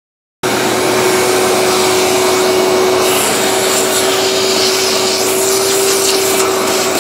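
Shop-Vac wet/dry vacuum running with a steady whine over a loud rush of air, cutting in abruptly about half a second in, its 3D-printed tip vacuuming metal chips out of the slots of a CNC machine table.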